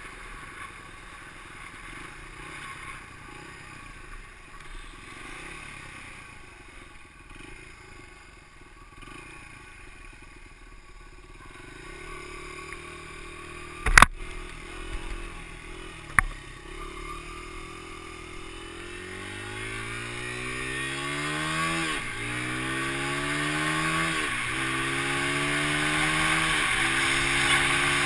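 Dirt bike engine running quietly, then pulling away and accelerating. Its note rises through each gear and drops back at three upshifts near the end, getting steadily louder. Two sharp clicks come shortly before it pulls off.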